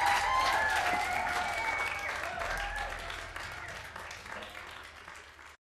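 Audience applauding, with a few voices in the crowd, fading out steadily until it cuts off shortly before the end.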